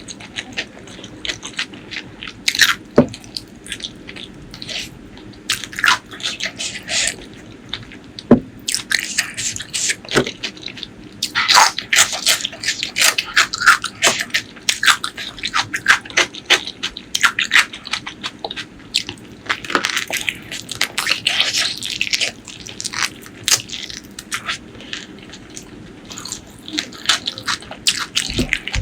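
Close-miked eating: a person chewing and crunching food, with irregular clusters of sharp, wet clicks and crackles.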